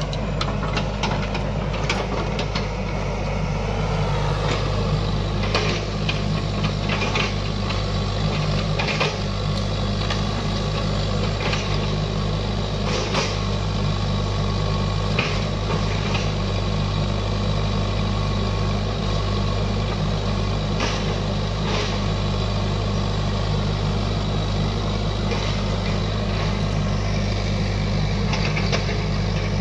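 XCMG XE55DA mini excavator's diesel engine running steadily as the machine works, with scattered sharp knocks and snaps from the machine and the brush and soil it clears.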